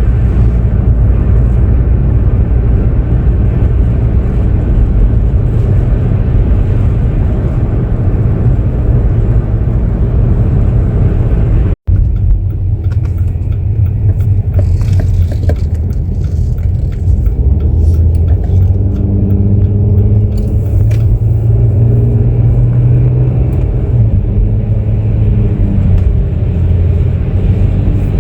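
Loud, steady low rumble, with a short break about twelve seconds in.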